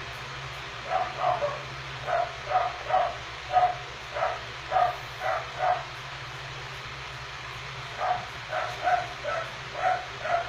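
A dog barking in two runs of short, evenly spaced barks, about two or three a second, with a pause of about two seconds between the runs. A steady low hum runs underneath.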